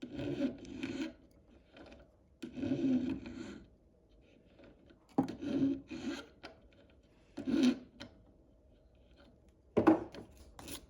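Hand file rasping along the edges of a twisted sterling silver wire ring in about five separate strokes with short pauses between, flattening and refining the edges.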